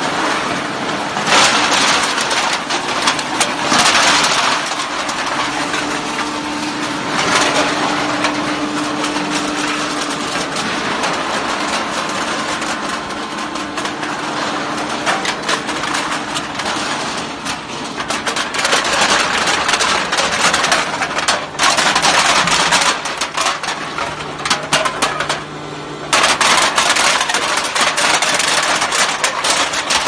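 Automatic aluminium can baler running: a steady machine hum under a dense clatter of used beverage cans, with louder spells of rattling and crunching as the cans are pressed.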